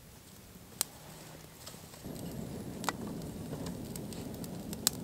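Freshly lit hardwood campfire crackling, with a few sharp pops; about two seconds in, a steady rush of flame comes in as the fire catches.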